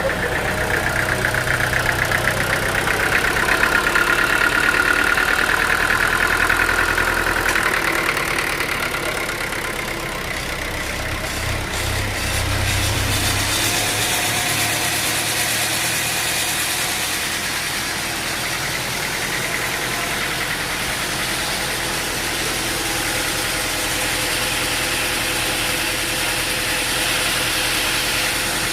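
An engine-driven machine running steadily, with mechanical clatter over it. About 13 seconds in the deep low hum drops away, leaving a higher, hissing machine noise.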